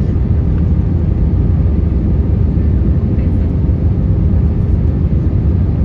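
Airbus A320 cabin noise on approach with the flaps extended: a steady low rumble of airflow and engines, with a faint steady hum over it.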